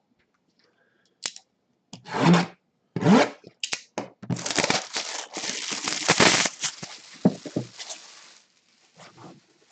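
Packaging torn open by hand on a sealed box: a few short rips, then a longer stretch of tearing and crinkling about four seconds in that fades near the end.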